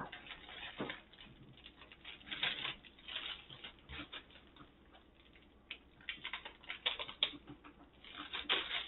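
Clear plastic packaging crinkling and rustling as a rolled diamond-painting canvas is handled and slid out of its sleeve, in irregular crackly clusters with a short lull around the middle.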